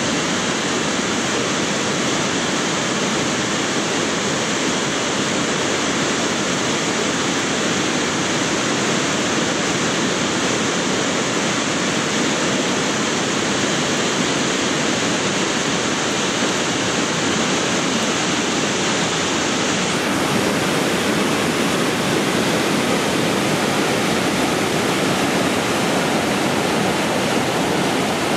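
Steady rushing of a whitewater river.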